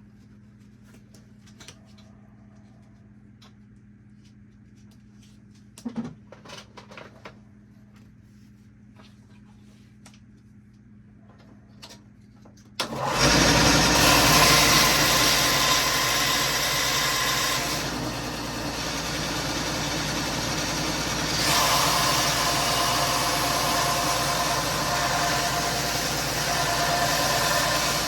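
A few faint handling clicks, then about halfway through a Wen belt sander's motor switches on abruptly and runs with a loud, steady whir. Its sound dips for a few seconds and then rises again.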